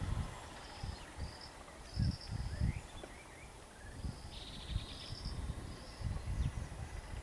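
Outdoor ambience: short, high chirping calls repeating, with a brief buzzing trill about four and a half seconds in, over irregular low rumbles.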